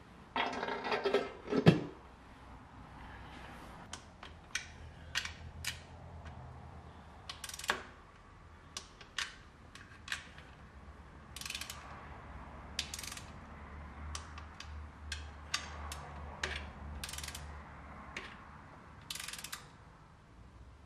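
Aluminium valve cover of a BMW M20 engine set down on the cylinder head with a metallic clatter and a sharp click, then a small hand ratchet clicking in short scattered runs as the cover's fasteners are tightened.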